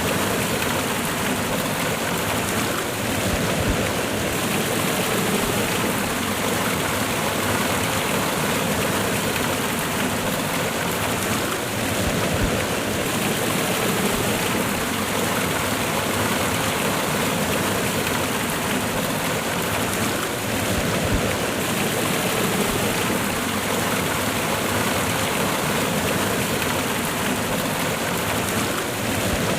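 Water of a small waterfall cascade pouring and splashing in a steady, even rush.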